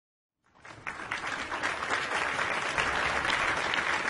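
Audience applauding, fading in about half a second in and then holding steady.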